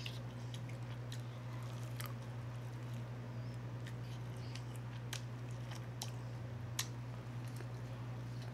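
Close-miked biting and chewing of corn on the cob with cheese and Cajun seasoning, heard as scattered sharp mouth clicks and crunches, over a steady low hum.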